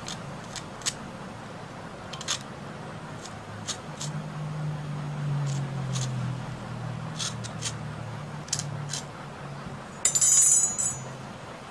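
Cutter blade scraping and nicking the worn rubber sleeve of an HP LaserJet 2015 printer pressure roller, scattered light scrapes and ticks, as the damaged rubber is cleaned off. About ten seconds in comes a brief, louder clatter.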